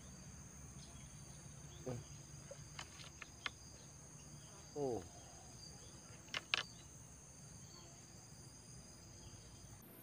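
A faint chorus of insects chirring in the swamp, heard as several steady high-pitched tones that cut off suddenly near the end. A few short faint clicks and a brief falling call about halfway break in over it.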